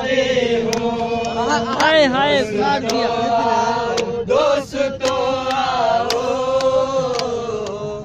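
Men singing a Balti ghazal unaccompanied, in long held notes with a wavering ornamented run about two seconds in.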